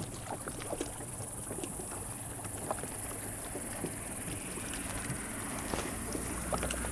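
Steady high-pitched insect chorus, typical of crickets, with scattered faint clicks and taps.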